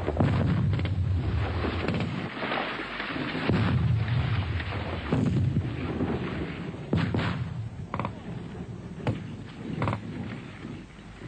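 Explosions rumbling in low, rolling swells through the first half. They are followed by a handful of sharp, separate rifle shots in the second half.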